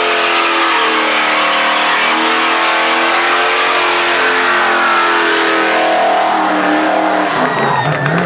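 A Pontiac Firebird's engine is held at high revs in a burnout, its rear tyres spinning on the tarmac, and the revs drop away near the end.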